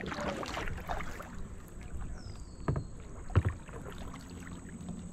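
Kayak paddle strokes on calm water: soft dips, drips and swishes, with two louder splashes or knocks a little past halfway.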